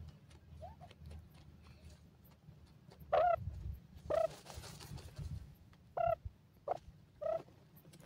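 Grey francolins giving short, clipped calls: a faint rising chirp near the start, then a louder pair about three and four seconds in and three more near the end.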